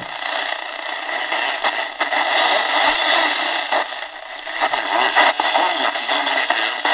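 AM static and hiss from the Tecsun 2P3 kit radio's small speaker as its medium-wave dial is tuned between stations, with a few sharp crackles. About halfway through, a distant station's voice starts faintly coming through the noise.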